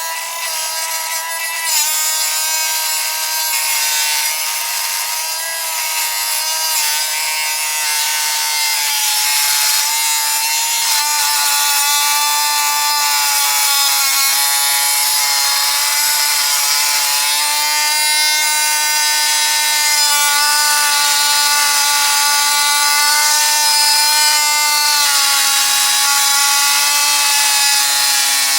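Dremel rotary tool running at a steady high whine while grinding through a Master padlock, the pitch sagging and recovering slightly as it bites into the metal.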